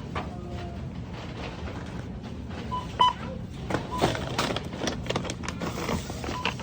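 Checkout barcode scanner giving short single-tone beeps a few seconds apart as items are scanned, the loudest about three seconds in, with clatter of items being handled between beeps.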